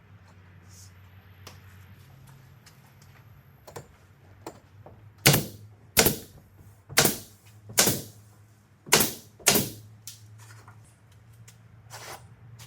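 Six loud, sharp knocks, spaced about half a second to a second apart, with fainter clicks before and after, over a low steady hum.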